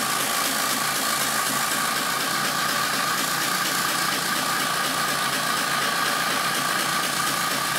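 Tractor engine running steadily, with an even mechanical drone.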